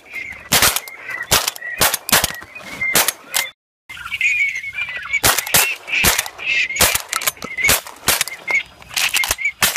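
Rapid shotgun fire from several guns at a flock of ducks, the shots overlapping at several a second, with a short total silence about three and a half seconds in. A high wavering call carries on under the shots.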